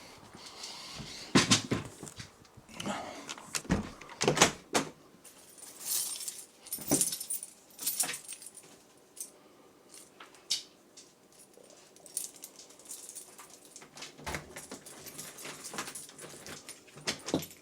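Irregular metallic jingling and rattling with scattered knocks, stopping and starting, as dogs move about close by.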